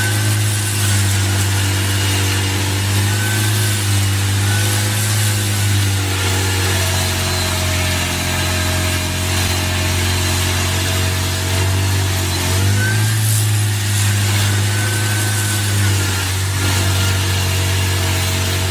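Engine of a heavy forestry machine running steadily; its pitch drops about a third of the way in and rises again about two thirds in.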